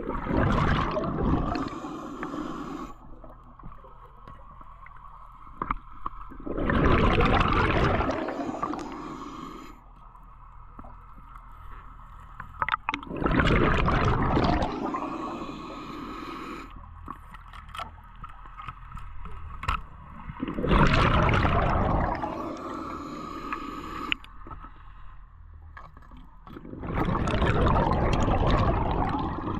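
Scuba diver's exhaled bubbles rushing out underwater, a loud burst of about two seconds every six to seven seconds, five times in all.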